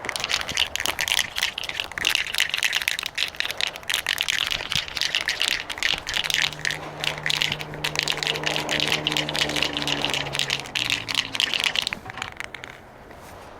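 A can of silver spray paint being shaken hard, its mixing ball rattling fast and steadily, stopping about twelve and a half seconds in, just before spraying.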